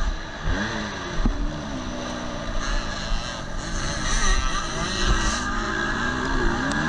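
2018 KTM 250 SX-F four-stroke single-cylinder motocross engine heard from the rider's onboard camera, its pitch falling and rising repeatedly as the rider backs off and gets back on the throttle through a turn, over a steady hiss of wind on the microphone.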